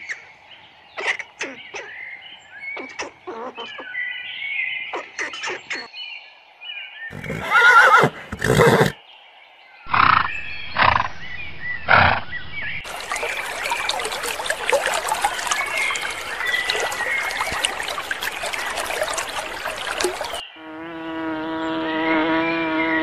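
A string of different animal calls in turn: short chirping calls, then two loud calls about eight seconds in and three sharp calls soon after, then a long noisy stretch, ending in a steady buzzing tone.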